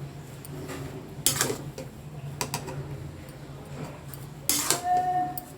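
A metal utensil scraping and clinking against a cooking pan in three separate goes, the last one with a brief ring, over a low steady hum.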